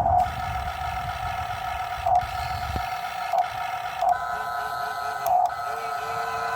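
Electric motors and gearboxes of a Huina radio-controlled model excavator whining steadily, with short surges every second or so as the controls are worked. A low rumble, likely the bucket working in soil, stops about three seconds in.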